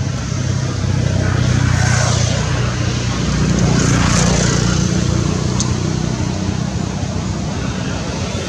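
Steady engine drone with a low hum, swelling about two seconds in and again about four seconds in.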